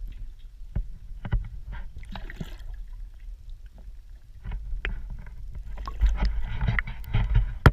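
Irregular knocks and clatters of handling on a fishing boat, over a steady low wind rumble on the microphone, growing busier and louder near the end.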